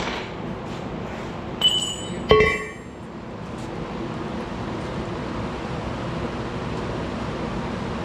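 Two ringing metal-on-metal clanks, a second apart, from steel tools striking the hay baler's bearing housing while the burned-out bearing is being replaced. A steady engine hum runs underneath.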